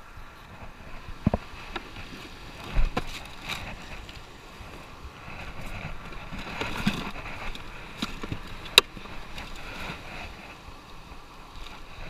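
Steady wind and surf noise, broken by a few sharp knocks and a bright click near the end of the handling sounds.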